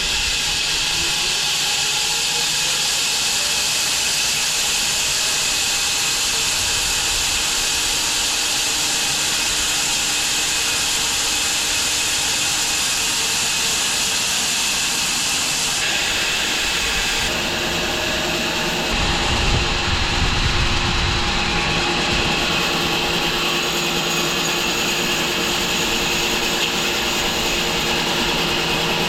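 Home-built wide bandsaw mill running, its band blade sawing through a London plane log with a steady loud hiss. The sound shifts a little over halfway through, and a low rumble comes in for a few seconds after it.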